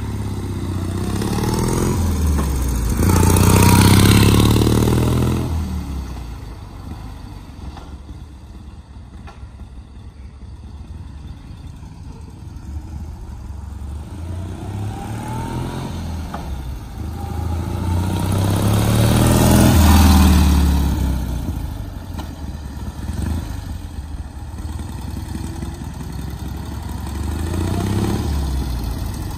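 1941 BMW R12's side-valve flat-twin engine as the motorcycle is ridden past twice, rising in pitch as it picks up speed and loudest at about four seconds and again at about twenty. Between the passes it fades as the bike rides away up the street, and it grows again near the end as the bike comes back.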